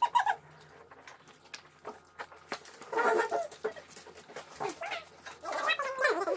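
Fast-forwarded conversation: people's voices sped up and pitched high into garbled, squeaky chatter. It comes in short bursts about three seconds in and again near the end.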